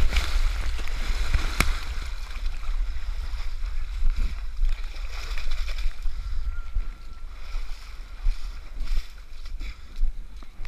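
Muddy water splashing and sloshing as a runner wades and scrambles through a mud pit, loudest at the start as mud sprays up, over a heavy low rumble of wind and handling on the body-worn camera. A sharp knock about a second and a half in.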